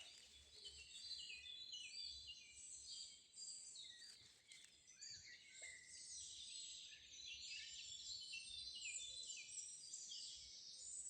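A faint forest bird chorus: many birds chirping and singing at once, a dense, unbroken stream of short, high, overlapping notes.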